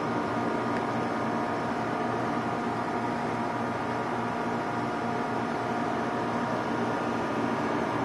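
Nakatomi MAC-20 portable air conditioner running in dehumidify mode: a steady fan rush with a constant hum of several steady tones.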